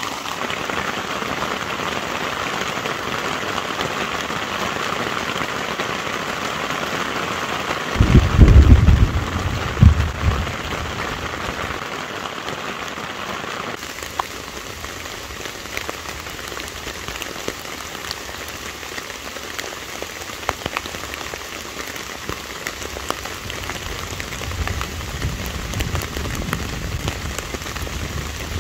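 Heavy rain pouring steadily onto a tarp and the surrounding forest leaves. A loud thunderclap and rumble come about eight seconds in, and a lower rumble of thunder comes near the end.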